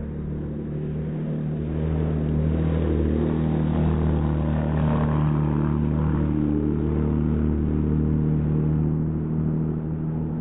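Engine running at a steady, unchanging pitch. It grows louder over the first couple of seconds, holds, then eases off slightly near the end.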